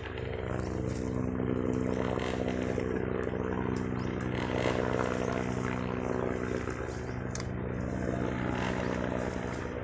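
Dirt bike engines running on a steep muddy trail climb, a steady motor hum that swells a little now and then.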